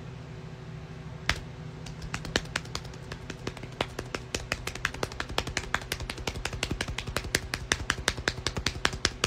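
Rapid, irregular tapping clicks that start about a second in and come quicker, several a second, over a low steady electrical hum and hiss.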